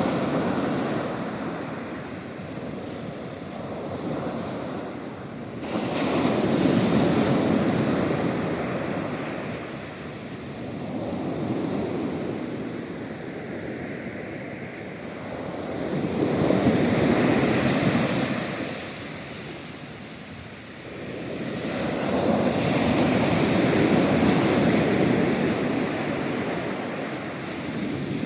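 Sea waves breaking on the shore in a heavy westerly swell, each break surging up and then fading, about every five or six seconds. One wave crashes in sharply about six seconds in.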